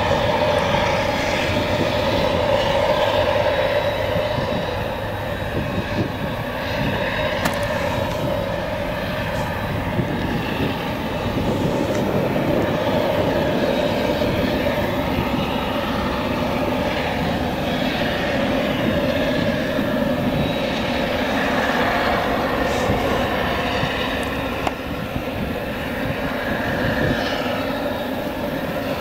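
Claas Jaguar 970 self-propelled forage harvester with its Direct Disc header cutting and chopping whole-crop triticale for silage and blowing it into a trailer: a steady machine drone with a held pitched hum.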